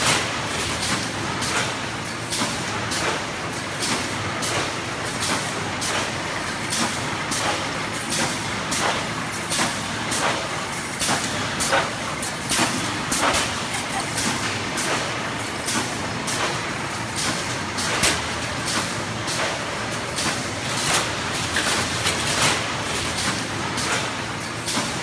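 ZGTEK automatic wire mesh welding machine running, with repeated short sharp strokes of its welding cycle, about one or two a second at uneven spacing, over a steady machine noise.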